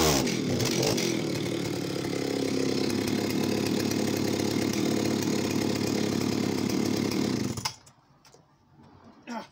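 Vintage Jonsered 80 two-stroke chainsaw coming out of the cut and dropping to a steady idle. About seven and a half seconds in it is switched off and stops abruptly, leaving only a few faint clicks of handling.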